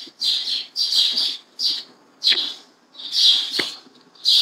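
A bird chirping: a string of short, high calls about two a second, with one brief falling whistle a little past three seconds in.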